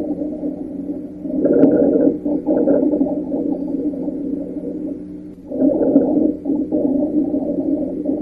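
Lung sounds heard through a stethoscope: two slow breaths, each swelling and fading, carrying low, steady continuous tones.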